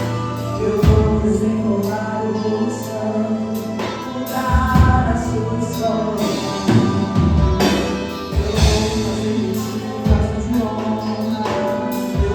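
Gospel worship song: voices singing over instrumental accompaniment with a bass line and regular percussive hits.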